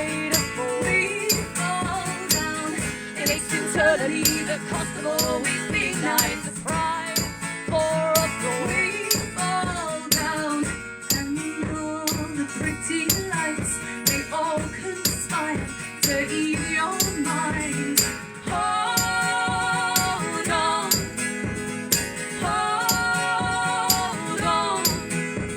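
A band's song playing, with a steady beat, rattling hand percussion and a moving melody; in the later part the melody settles into long held notes.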